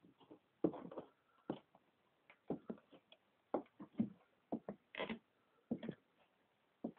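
Cowboy boots stepping on a wooden floor: uneven hard knocks of heel and sole, one or two a second, some coming in quick pairs.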